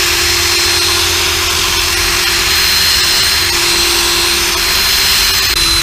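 Cordless drill running at steady full speed, with a constant high whine, its bit pressed into the bearing cap of a BMW E46 drive-shaft U-joint without cutting in. The cap is too hard for the bit. The drill cuts off abruptly right at the end.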